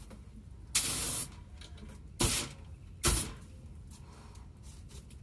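Paint spray gun triggered in three short bursts of hissing spray: the first lasts about half a second, the next two are shorter and come about a second apart.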